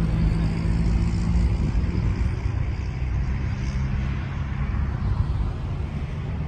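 Motor vehicle engine idling: a steady low hum and rumble that eases off slightly over the seconds.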